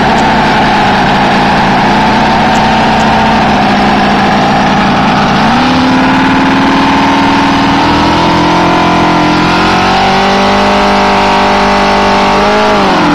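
Robart R780 seven-cylinder radial model engine on a scale Fairchild PT-23 running at idle, then throttled up in a step about five seconds in, climbing further in speed, and dropping quickly back to idle near the end.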